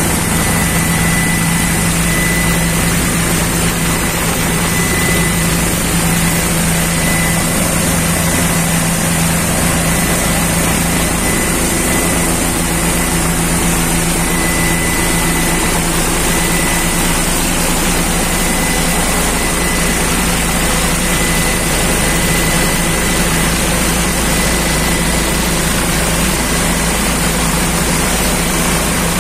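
Helicopter in flight heard from inside its cabin: loud, steady engine and rotor drone with a constant thin high whine over a rushing noise.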